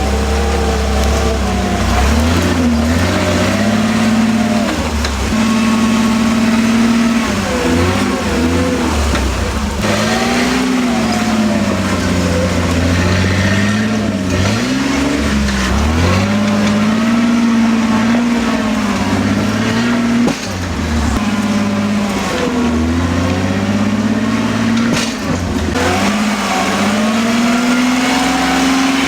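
Lifted off-road Jeep's engine revving up and down over and over as it works through obstacles, the pitch climbing and falling with each throttle push, with a brief drop about two-thirds of the way through.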